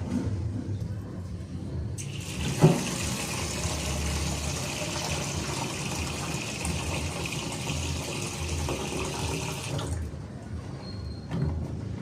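Water running steadily from a tap for about eight seconds, turned on and off abruptly, with a single knock shortly after it starts.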